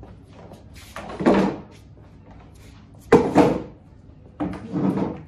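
Plastic stacking chairs pulled off a stack and set down on a tiled floor: three bouts of knocking and scraping, about a second in, at about three seconds (the loudest) and near the end.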